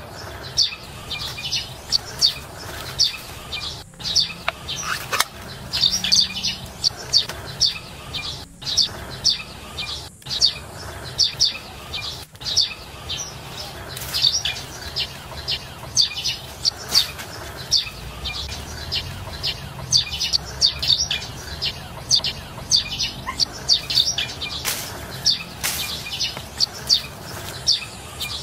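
Small birds chirping steadily, about three short, high chirps a second.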